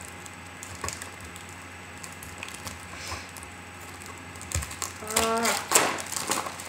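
A candy bar's wrapper being picked at and peeled open by hand: scattered soft crinkles and small clicks, with a louder crackle of wrapping near the end. A brief hum of voice comes about five seconds in.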